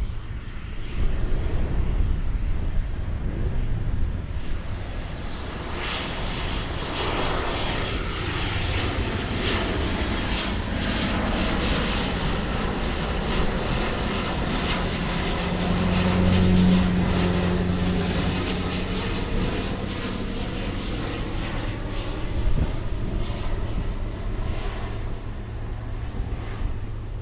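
Jet airliner passing overhead: its engine noise builds over several seconds, is loudest a little past the middle with a deep hum, then fades away with falling whines as it recedes.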